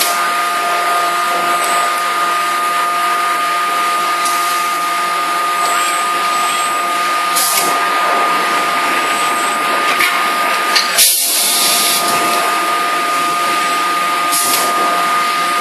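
Steady whirring hiss of a CNC hydraulic die-forging hammer and its robot manipulator running, with two steady tones under it. Short sharp hisses come every few seconds, and about eleven seconds in two quick knocks are followed by a longer hiss of about a second.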